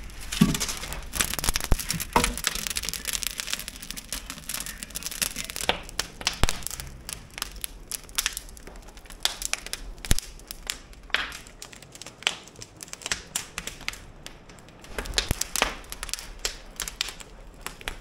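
Wood fire crackling in an open fireplace, with irregular sharp snaps and pops from the burning logs.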